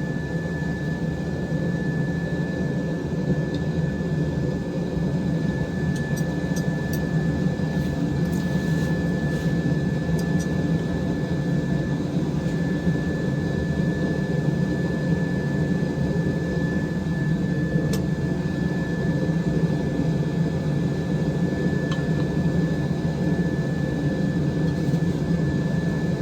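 Forge running steadily: a continuous low roar with a thin high whine held throughout, no hammer blows, while the workpiece heats up.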